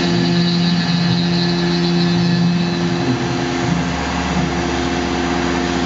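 Tormach PCNC 1100 CNC mill side-milling 6061 aluminum with a 2-flute carbide end mill: steady spindle and cutting tones that shift in pitch about two-thirds of the way through as the cutter moves along the part.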